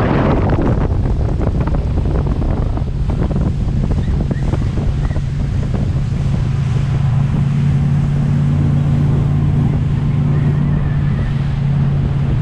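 Motorboat engine running steadily, its hum growing stronger about halfway through, with wind buffeting the microphone and water rushing past.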